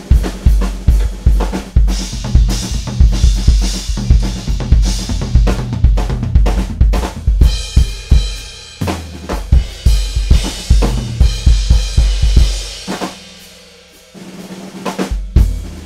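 Close-miked drum kit played in a fast solo: rapid snare strokes and rimshots with bass drum, cymbals and low drums ringing under them. About thirteen seconds in the playing thins out and fades, then a short last flurry of hits.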